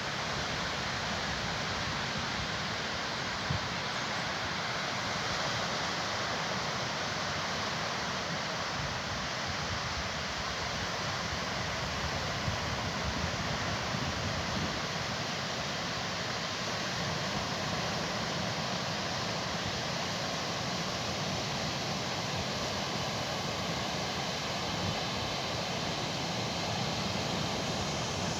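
Rough sea: a steady rush of surf and breaking waves.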